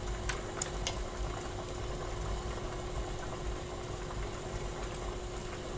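Pot of water boiling on a portable stove: a steady bubbling and low burner rumble, with a few faint clicks in the first second.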